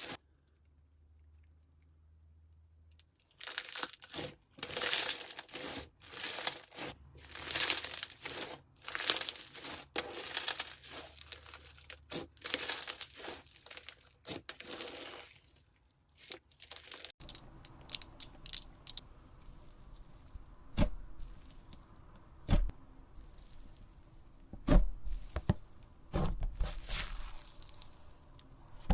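Slime being squeezed, stretched and poked by hand, giving crackling, crunchy bursts. The bursts begin about three seconds in, and from about halfway on come sharper single clicks and pops.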